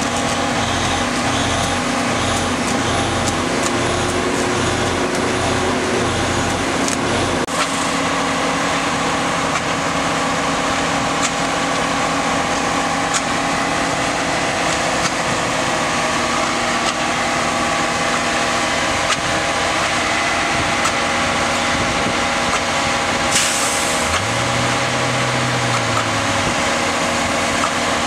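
Flash-butt rail welding truck's engine and machinery running steadily. For the first seven seconds a low pulsing repeats a little faster than once a second. About 23 seconds in there is a brief hiss of air, and just after it the engine note rises and falls.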